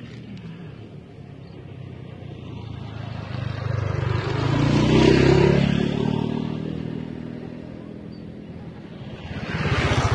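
Motor vehicles passing by on a road: one engine swells to a peak about five seconds in and fades away, then a small motorcycle approaches and passes close by near the end.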